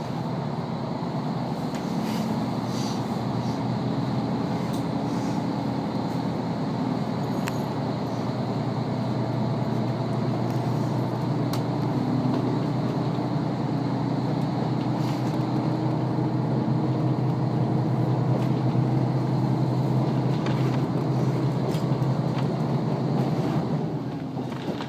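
Train carriage pulling away from a station and gathering speed, heard from inside: a steady running and motor sound that grows gradually louder as the train speeds up.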